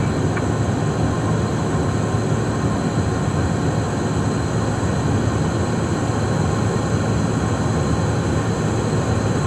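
Steady cockpit noise of a Cessna Citation Mustang in flight: rushing airflow and its twin Pratt & Whitney PW615F turbofans, with a thin high whine running through it.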